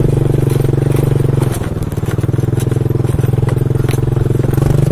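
Motorcycle engine running steadily, easing off the throttle about a second and a half in to a lower pulsing note, then picking up again near the end.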